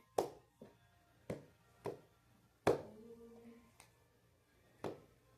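Sticky slime being handled and slapped: a string of short, irregular taps, about seven of them, the loudest near the middle.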